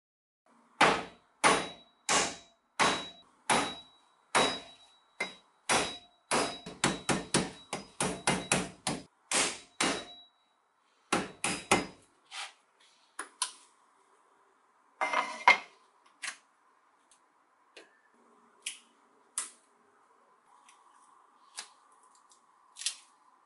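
The back of a cleaver striking the hard shell of a Thai young coconut to crack its lid: sharp knocks about every 0.7 s, then a faster run of strikes around four a second, some with a faint metallic ring. After that come sparser, lighter taps and clicks as the cracked lid is levered off.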